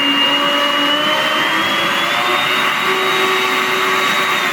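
Arno Clic 600 W blender motor running with a steady high whine, its pitch rising a little about two seconds in, then switched off and spinning down at the end. It runs because the jar is now fully seated and engages the base's safety interlock latch.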